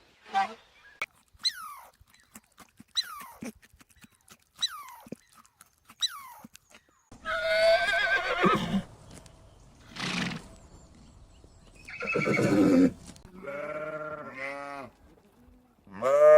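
Sheep bleating: several loud, wavering bleats in the second half, the loudest near the end, after a few seconds of short, high, falling calls.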